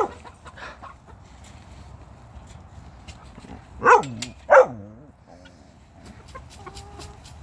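Poultry calling: two loud squawks about half a second apart, around four seconds in, each falling in pitch.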